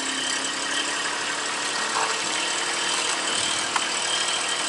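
Tractor engine running steadily, with a couple of faint clicks about two and three and a half seconds in.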